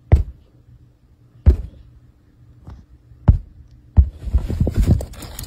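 Three single dull thumps a second or more apart, then from about four seconds in a quick run of knocks and scrabbling. These come from a cat moving about inside the cloth lining on the underside of a bed or sofa.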